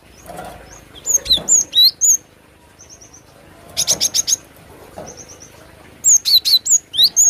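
Cinereous tit (glatik batu) singing: bursts of high, sharp chirping notes, with a quick run of about five notes around four seconds in and another cluster near the end.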